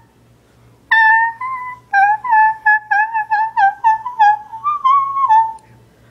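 A rapid string of about a dozen short, high, piping squeaky notes, roughly three a second, mostly on one pitch with a slight bend at each start. The last notes are a little higher and held longer before the sound stops.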